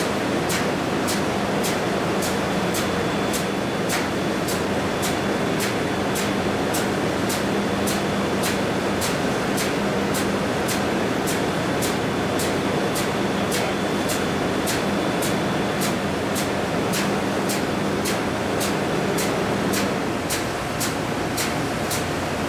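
Loud, steady ship engine-room machinery noise around a running oily water separator, with a steady hum that stops near the end. A sharp tick repeats about twice a second throughout.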